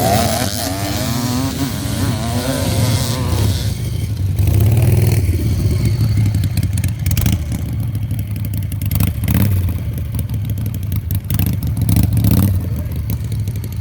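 Harley-Davidson V-twin motorcycle engine running hard under throttle, its pitch wavering in the first few seconds. Sharp clattering knocks come through in the second half.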